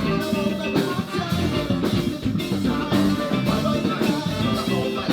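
Live band playing an instrumental passage with drums, bass and guitar at a steady beat, in a ska-like groove.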